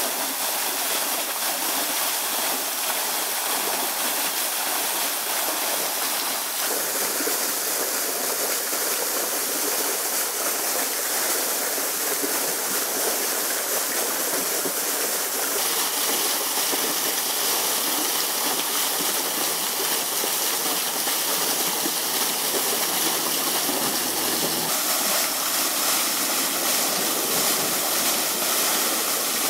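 Steady rushing noise like running water, changing abruptly in tone three times.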